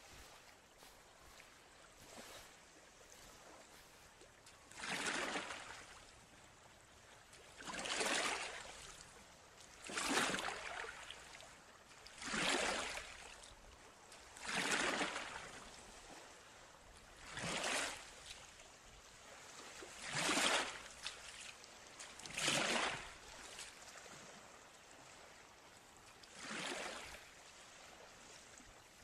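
River water sloshing in nine slow swells, each about a second long and coming every two to three seconds, over a faint steady trickle.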